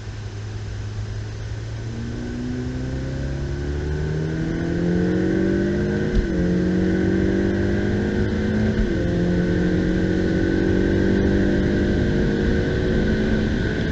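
Ferrari F8 Tributo's 3.9-litre twin-turbo V8 accelerating hard out of a corner, its pitch climbing, with two upshifts about six and nine seconds in, after which it holds high revs. A steady high whine runs alongside.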